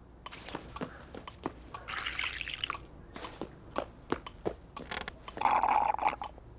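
Cartoon sound effects: a run of small irregular clicks and taps, with two short wet, slurping noises, one about two seconds in and a louder one near the end, as from a drink being sipped.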